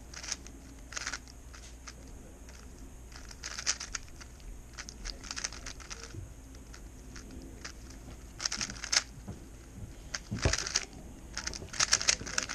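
Plastic speedcube being turned fast, in quick clattering bursts of layer turns with short pauses between them.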